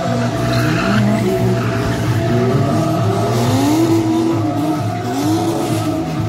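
Two drift cars sliding on cobbled pavement, their engines revving up and down several times over continuous tyre squeal.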